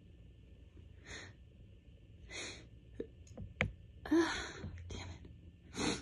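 A woman's breathy sniffs and gasps during an allergy sneeze build-up: about half a dozen short bursts, the longest and loudest about four seconds in. A sharp click comes just before it.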